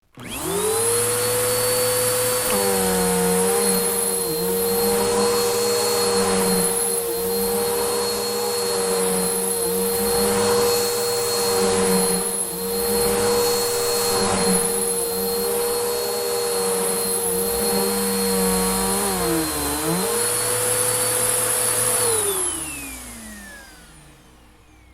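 Electric vacuum cleaner switched on, its motor whining up to speed within a moment and running steadily with a high whine over rushing airflow, the noise swelling and easing in a slow rhythm. About 22 seconds in it is switched off and the whine falls away as the motor spins down.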